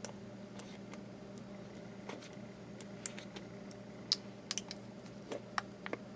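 Small sealed plastic gouache cups clicking and tapping against each other and a plastic storage tray as they are picked up and set in place: light, irregular clicks with pauses between, over a faint steady hum.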